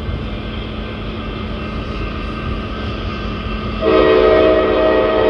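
Diesel locomotive's air horn on an approaching freight train: a loud, held chord of several notes starting about four seconds in, over the train's steady low rumble. The audio is slowed to half speed, which lowers the pitch.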